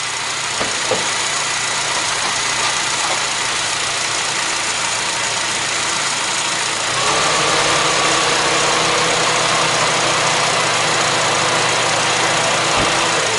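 Car engine idling steadily under an open hood. About seven seconds in the sound gets louder and a steady hum joins it.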